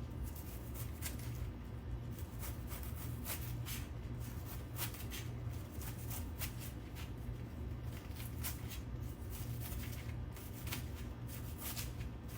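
Knife shaving thin slices from a head of cabbage on a cutting board: short crisp cuts at an irregular pace of about two a second. A steady low hum runs underneath.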